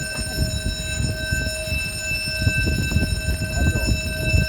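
Steady electronic warning tone of a movable bridge's signal, sounding at one unchanging pitch, over a low, uneven rumble.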